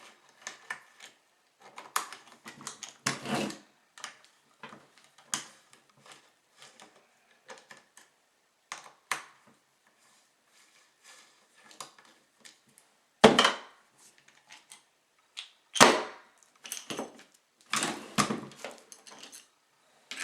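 Scattered metal clicks, taps and knocks of a Bostitch RN46 roofing coil nailer being taken apart by hand as its cap is unbolted with an Allen key and lifted off, with two louder knocks in the second half.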